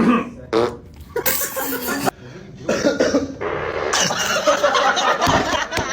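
A person coughing several times in quick succession, a forced, put-on fake cough.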